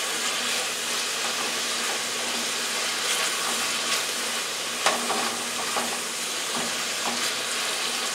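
Ground beef sizzling as it browns in a stainless-steel skillet while a spatula stirs and scrapes through it, with a few sharper scrapes against the pan about five seconds in.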